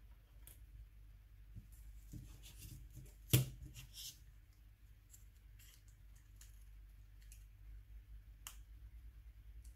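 Small metal and plastic parts of a Nokia N93 phone clicking as they are handled and fitted together, with one sharp snap about a third of the way in.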